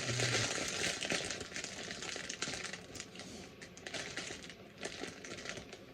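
LEGO parts being handled: plastic parts bags rustle, and small plastic pieces click and tap against each other in a quick, irregular patter.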